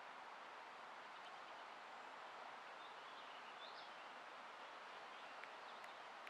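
Faint, steady outdoor background hiss, with a few faint bird chirps about two and a half to four seconds in.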